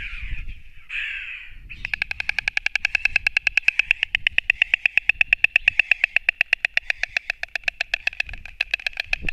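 White stork clattering its bill: a fast, even run of wooden clacks, about ten a second, that starts about two seconds in after a brief rustle. It is the stork's bill-clattering display, made on a contested nest.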